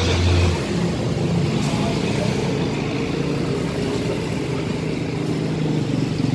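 An engine running steadily with an even hum; a deeper part of the hum drops away about half a second in.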